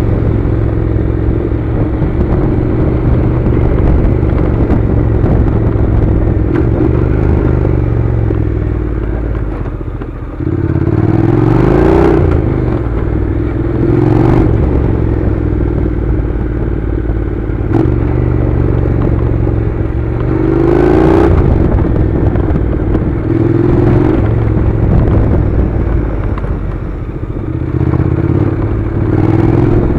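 Honda NC700's 670 cc parallel-twin engine running as the motorcycle rides a gravel track. The revs drop and then climb again twice, about ten seconds in and about twenty seconds in, with a few brief knocks.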